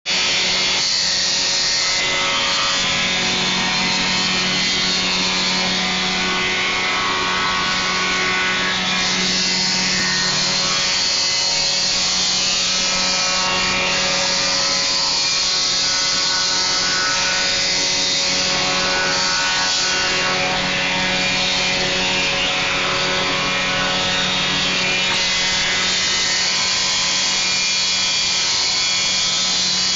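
Weinig Profimat moulder running steadily, its spinning cutterheads planing and profiling boards into crown moulding as the feed rollers carry them through. It is a continuous, even machine hum with a loud hiss of wood being cut.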